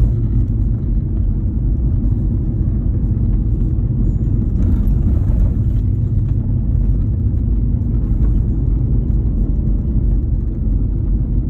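Steady road noise and engine drone heard from inside a moving vehicle's cabin.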